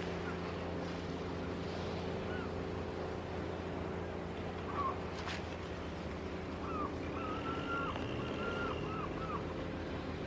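Steady low hum of an engine running. Birds call in short chirps through the second half, and a single sharp click comes about five seconds in.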